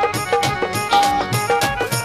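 Punjabi folk music from a live stage band: a steady drum beat under a short melody riff that repeats about twice a second.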